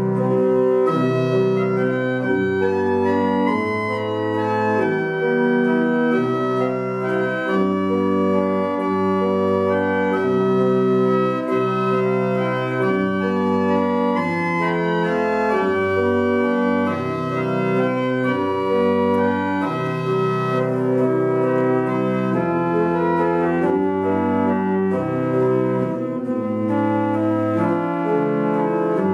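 Church pipe organ playing a postlude in full chords, with long-held bass notes under a moving melody.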